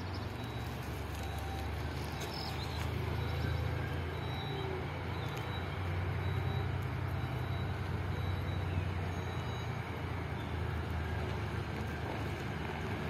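Diesel train running: a steady low engine drone under the rumble and noise of the ride.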